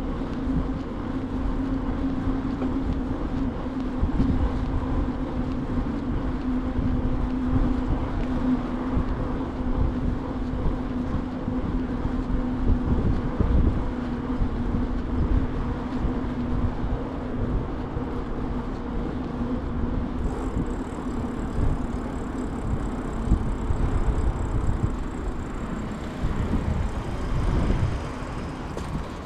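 Bicycle rolling along pavement: a steady rumble of tyres and small knocks and rattles from the bike, with a steady hum that fades out about halfway through.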